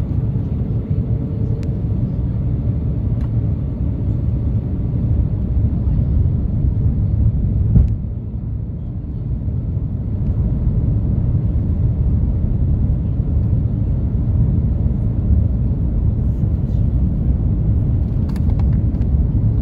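Steady low rumble of an Airbus A330-300 in flight, engine and airflow noise heard inside the passenger cabin, with a brief dip in level about eight seconds in.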